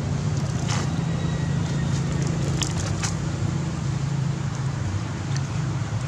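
A macaque biting and chewing small fruits, with a few sharp crunches between about one and three seconds in, over a steady low background rumble.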